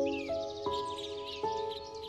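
Slow, gentle piano notes over birdsong: birds chirping and twittering in short, quick calls.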